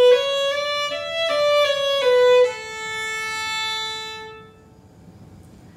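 Violin bowed on a single string, fingers stepping through a short run of notes up and back down, ending on a long held note that fades out about four and a half seconds in.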